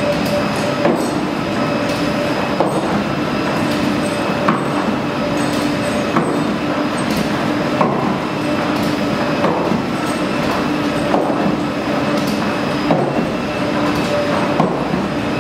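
Large ski treadmill belt running with a steady mechanical hum, under roller-ski wheels rolling on it. Ski pole tips strike the belt in a regular rhythm, a sharp clack a little under every two seconds.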